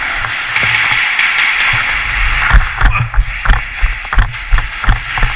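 Footsteps of a player moving quickly across a hard floor: a steady run of low thumps, about two to three a second, starting a couple of seconds in, over a steady hiss.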